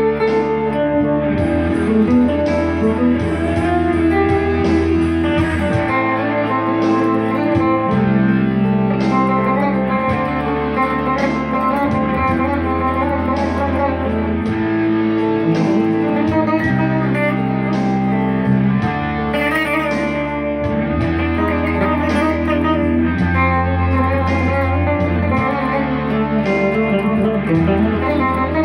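Electric guitar playing a blues jam, quick lead lines over low bass notes held for about two seconds each.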